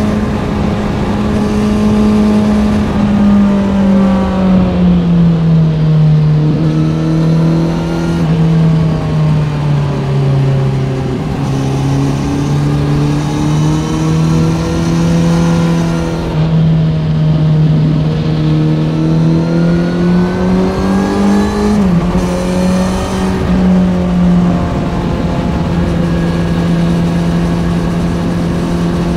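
Kawasaki Z900 inline-four motorcycle engine through an Ixil SX1 full aftermarket exhaust, under way. The engine note sinks slowly as the revs drop off, then builds again with a few abrupt steps like gear changes, and runs steadily near the end.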